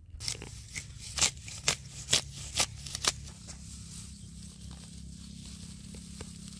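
Grass roots snapping as a clump of grass is torn from the soil: a run of about seven sharp snaps in the first three seconds, then a low steady hum.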